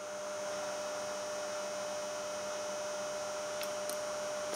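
Steady electrical hum, one constant tone over a soft hiss, with a couple of faint ticks near the end.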